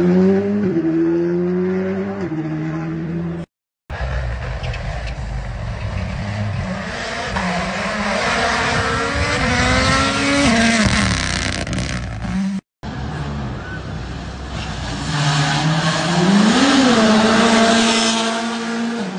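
World Rally cars, a Toyota GR Yaris Rally1 among them, passing at speed one after another: their turbocharged engines rev hard, the pitch climbing and dropping with throttle and gear changes, over a hissing rush. The sound cuts out briefly twice, about a third of the way in and again past the middle.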